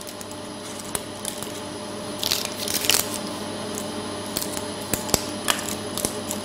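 Hands handling chocolates and setting them into paper cups in a cardboard box's gold tray: scattered light clicks and rustles, a few sharper ones about two to three seconds in, over a steady low hum.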